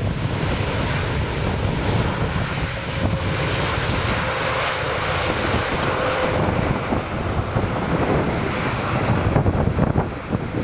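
Jet engines of an arriving Boeing 787 airliner, heard as a steady, broad rush with a faint steady whine through the middle, mixed with strong wind buffeting the microphone.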